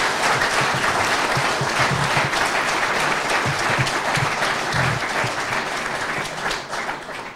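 Audience clapping in steady applause, dying away near the end.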